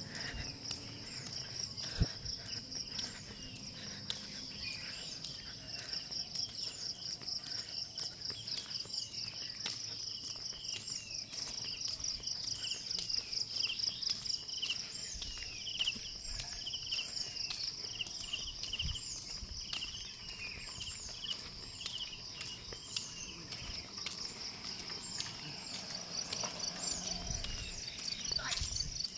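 Insects chirring steadily in a fast, continuous pulse, high in pitch, with a second, lower chirp that falls in pitch repeating about once a second through the middle stretch.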